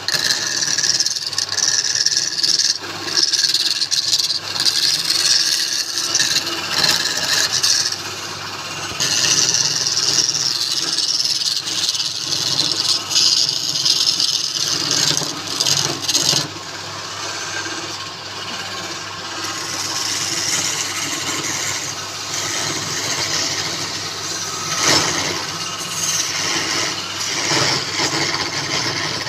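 Wood lathe running with a turning tool cutting the spinning wood: a steady motor hum under a hissing scrape that comes and goes as the tool is worked.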